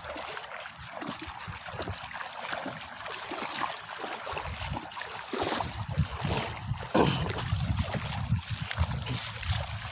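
Footsteps wading through shallow water, splashing and sloshing with each step. The splashing grows louder about halfway through, with one sharper splash about seven seconds in.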